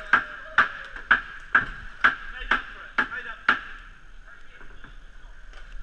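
Inline skate strides on a plastic sport-court tile floor: sharp clacks about twice a second, which stop after about three and a half seconds as the skater glides.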